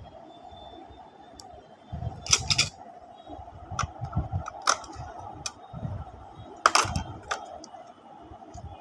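Geometry-box instruments (compass and dividers) being handled and set into the box's metal tin and tray, giving a scatter of sharp clicks and taps, the loudest about seven seconds in. A faint steady hum runs underneath.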